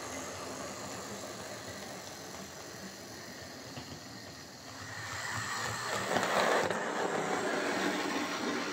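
Hornby R252 Class J83 OO gauge model tank locomotive running along the track, a steady mechanical running sound that grows louder about five seconds in as it nears. It runs smoothly now that its binding connecting rods have been replaced with a spare set.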